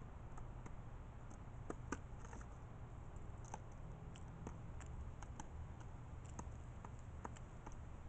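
Feral pigeon pecking at peanuts on a plastic table: faint, irregular sharp taps of its beak, roughly one or two a second, over a steady low rumble.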